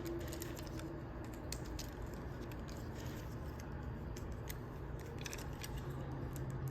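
Small, irregular plastic clicks and taps of a Transformers action figure's parts being handled and moved into place during transformation, over a steady background hiss.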